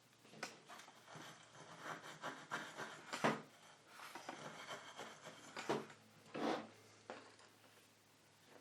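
Hands handling a circuit board and small parts at a soldering bench: irregular rubbing and scraping with light clicks, the loudest about three seconds in.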